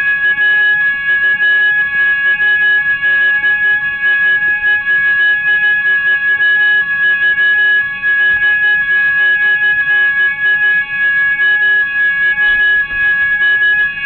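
Loud, steady electronic alarm tone, several fixed pitches held unchanged, starting abruptly.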